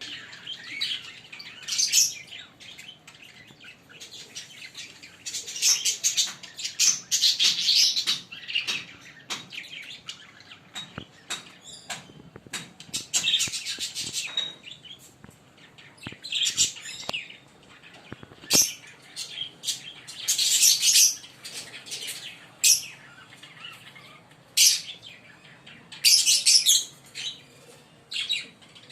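A pair of Fischer's lovebirds chirping in high, rapid bursts that come every few seconds, with a few sharp clicks between the bursts.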